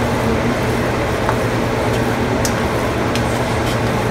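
Spatula stirring fried rice in a hot wok, with a few light clicks and scrapes against the pan, over a steady low hum and hiss.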